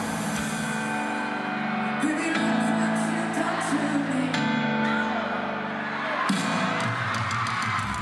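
Live pop-rock band playing: electric guitar and drums under a male lead vocal, recorded from the audience at a concert.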